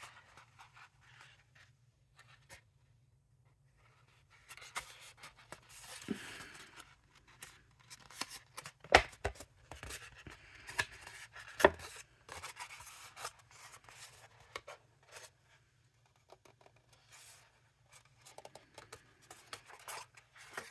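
Thick cardstock being handled and folded by hand: scattered rustling and creasing, with two sharper clicks a few seconds apart midway.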